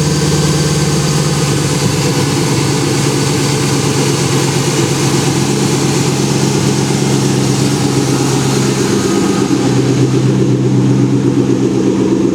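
Camaro's 6.2-litre LS3 V8 with a freshly installed Edelbrock E-Force supercharger idling steadily and quietly on its first start-up after the install. The idle note shifts slightly about nine seconds in.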